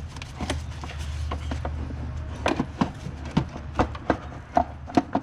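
Irregular clicks, knocks and metallic clinks of hand tools and removed parts being handled, sharper and more frequent from about halfway through, over a steady low hum.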